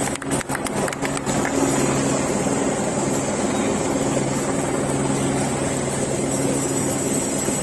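A steady engine hum that holds one pitch, with a quick flurry of sharp clicks in the first second.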